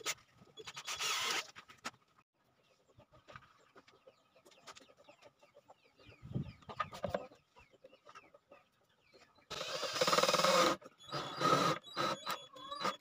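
Chickens clucking and calling, with a louder burst of calls about ten seconds in and another shortly after, among occasional light clicks and knocks.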